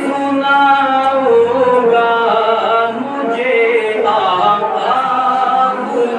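A man singing a naat, an Urdu devotional poem in praise of the Prophet, into a handheld microphone, drawing out long notes that bend and glide.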